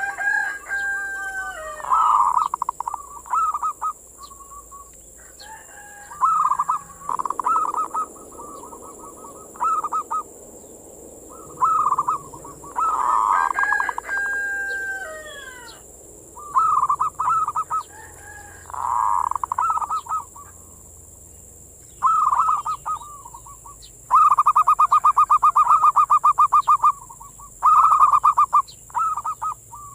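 Zebra dove (perkutut) cooing, a series of separate staccato coo phrases a second or two long. About 24 seconds in comes a longer run of rapid pulsed notes. A steady high hiss runs underneath.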